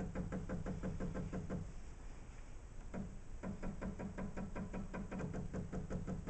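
Embroidery unit of a computerised sewing machine moving the hoop in quick steps: a rapid, even ticking of about six clicks a second over a steady low hum. The ticking stops for about two seconds in the middle, then starts again.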